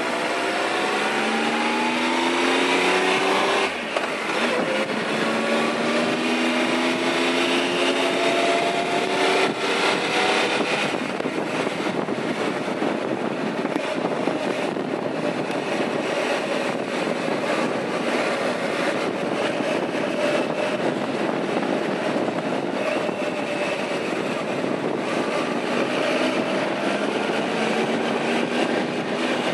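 Triumph Tiger 1200's three-cylinder engine accelerating hard, its pitch climbing through the gears with a brief drop at a shift about four seconds in. From about ten seconds it settles to a steady cruise, largely covered by wind rushing over the microphone, and the engine pitch climbs again near the end.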